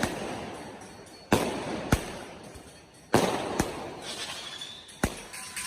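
Fireworks going off in a string of about five sharp bangs at uneven intervals, each with a long echoing tail.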